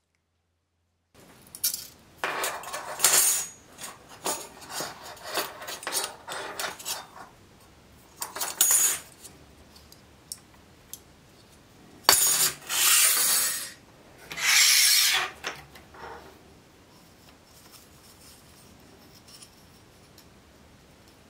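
Rusty steel bayonet-scabbard parts scraping and clinking together as they are handled and taken apart: a quick run of short scrapes, a sharp click about twelve seconds in, then two longer scrapes before it goes quiet.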